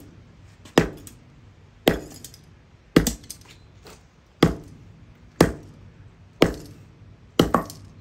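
Repeated blows striking a microwave oven's high-voltage capacitor to break it open, about seven sharp impacts roughly a second apart.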